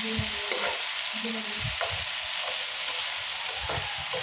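Diced beef, potato, carrot and chayote sizzling in a hot oiled frying pan while being stirred and turned with a spatula, the spatula scraping across the pan a few times.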